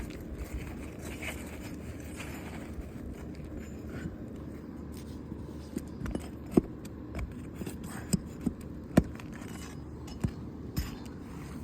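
Roof shingle being pried up and worked loose: irregular scraping with scattered sharp clicks and knocks, the loudest about six and a half and nine seconds in.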